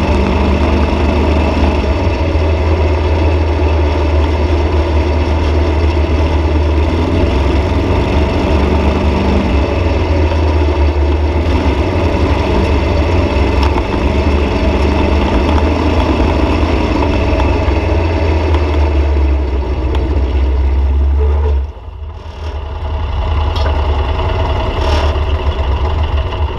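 Off-road dune buggy engine running loud and steady under throttle. About three-quarters of the way in, the throttle is let off and the engine drops back sharply, then runs on at a lower level as the buggy pulls up.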